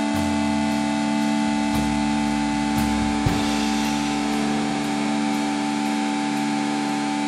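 Electric motors and propellers of a VC-450 quadcopter, heard from its onboard camera, whining at a steady pitch with a hiss of prop wash and wind. There are low buffeting rumbles and one brief knock about three seconds in.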